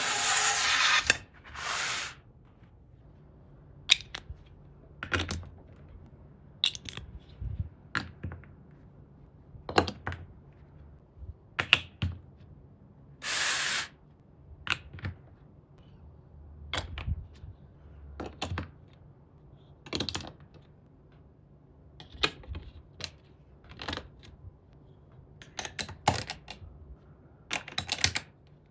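Interlocking building bricks being clicked together one at a time, sharp clicks every second or two, with a few short rustling scrapes of pieces in between.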